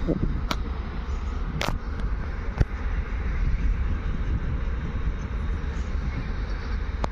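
Freight train hauled by an electric locomotive rolling past on a far track: a steady rumble and rolling noise, with a few sharp clicks.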